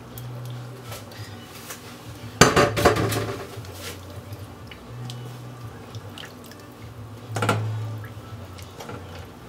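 A spoon stirring meat and stock into a metal pot of tomato stew, clattering and scraping against the pot. It is loudest twice, about five seconds apart.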